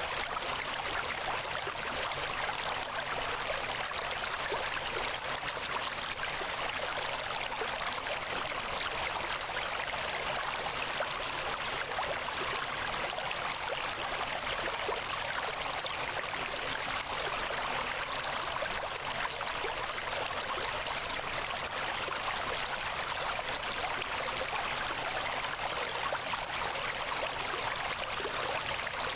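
Steady, even rushing noise like a flowing stream, holding at one level throughout with no distinct events.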